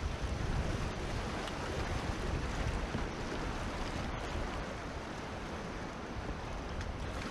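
Rushing river water with wind buffeting the action-camera microphone, a steady noisy rush heaviest in the low end.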